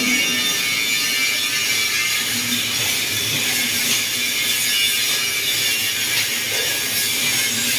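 Metalwork on a steel truck body: a steady high rasping hiss that runs without a break.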